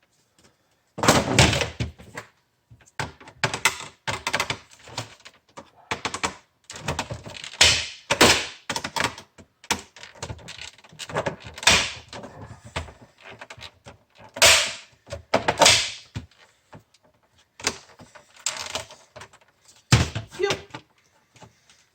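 Irregular knocks, thunks and rattles of hard plastic parts of a food vacuum sealer being handled and worked apart by hand, with a sharp knock near the end.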